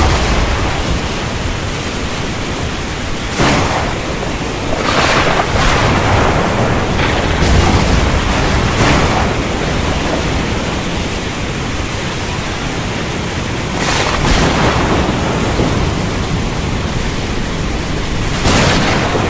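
Heavy rain pouring down hard in a thunderstorm: a dense, steady rush that surges louder several times, briefly each time.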